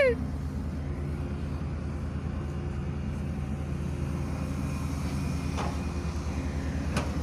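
Crawler excavator's diesel engine running steadily as the machine works in deep mud, stuck and trying to dig itself out. A short high whistle cuts off at the very start, and a couple of faint clicks come near the end.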